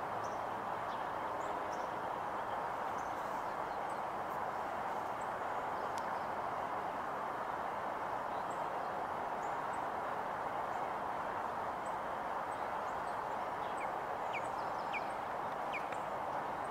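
Steady rush of background noise, with a quick series of short whistled calls from a white-tailed kite near the end.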